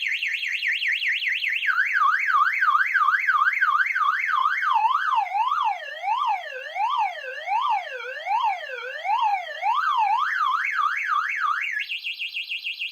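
Electronic burglar-alarm siren from the RS-661 alarm panel's speaker, sweeping up and down in pitch. It starts as a fast high warble, and about two seconds in it turns into a slower, lower wail that drops deeper and then climbs back. Near the end it jumps back to a fast high warble. The siren tone is being changed with the speaker potentiometer on the alarm board.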